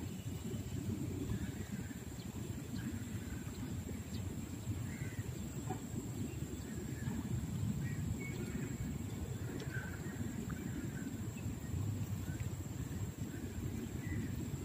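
Riverbank ambience: a low, steady rumble with faint, scattered bird chirps and a thin, steady high whine.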